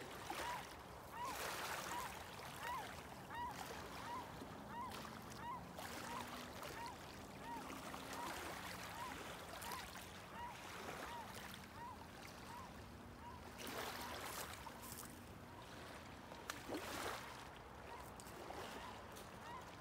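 Faint shoreline ambience: water lapping along a rocky, log-strewn beach with soft wind noise, rising and falling in brief swells. Through it runs a short high chirp repeating evenly, about every two-thirds of a second.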